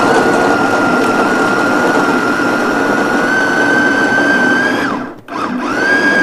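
Kova Kraser 3L electric food chopper running with a steady motor whine as its blades grind raw chicken breast and garlic into paste. The whine rises slightly in pitch. About five seconds in, the motor winds down briefly and then starts again.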